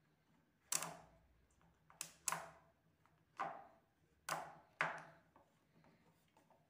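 Magnetic balls clicking as they snap onto a chain of other magnet balls: six sharp clicks at irregular intervals, each dying away quickly.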